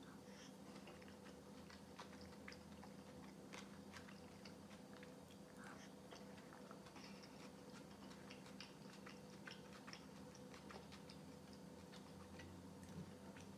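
Faint chewing and mouth sounds of a person eating a spoonful of boiled egg with cold beet soup, with scattered small clicks over a steady low hum.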